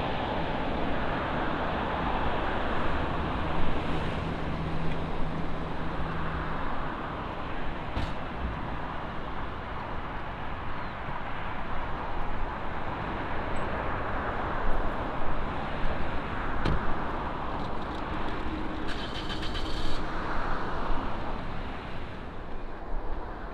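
Steady roar of jet airliner engines heard from a distance, swelling and fading every few seconds, with a couple of brief clicks.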